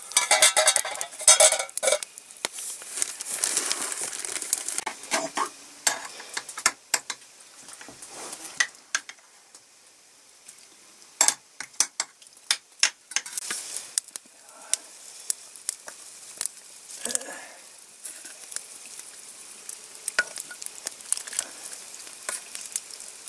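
Metal cookware being handled over a wood fire: a pot lid, ladle and steel bowl clinking and scraping, with sizzling and crackling from the fire under the pot.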